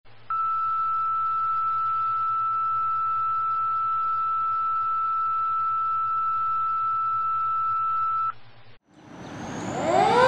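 A long, steady electronic beep tone holds for about eight seconds over a faint low hum, then cuts off. About a second later a fire engine's siren starts up, rising in pitch and growing louder.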